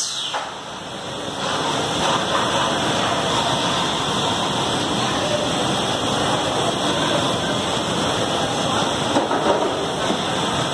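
Steady hiss and machine noise of a robotic chassis welding line running, with a brief dip at the start and a few louder peaks near the end.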